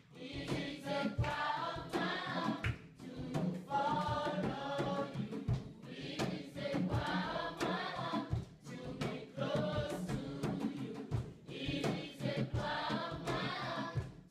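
Background music: a choir singing in phrases of about two seconds each, over a light percussive beat.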